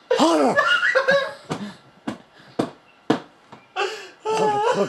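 Helpless, wheezing laughter: high, wavering laughs with short, sharp gasps for breath in between.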